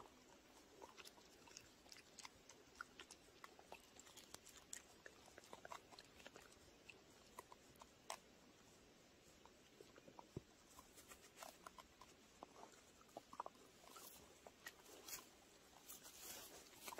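A dog chewing a pine cone: faint, scattered crunching clicks, coming thicker near the end.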